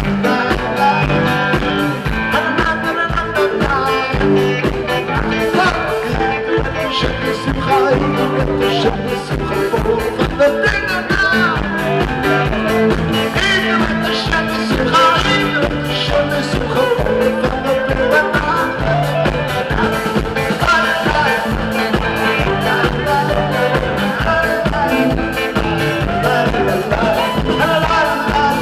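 Live band playing an upbeat rock song: a man singing over electric guitar, saxophone and drums, with a steady beat.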